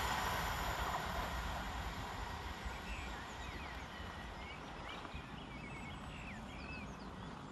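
Rumble of a pair of Southern Class 377 Electrostar electric multiple units fading away as they recede, with a few bird chirps in the middle.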